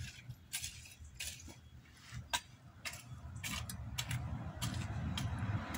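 A garden tool working the soil of a vegetable bed: irregular sharp clicks and clinks, about a dozen of them, as it strikes earth and small stones. A low traffic rumble builds near the end.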